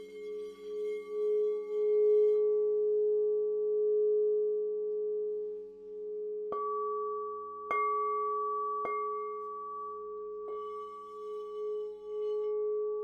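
Several singing bowls ringing together in sustained overlapping tones. Bowls are struck three times about a second apart in the middle, then once more, softly, a little later.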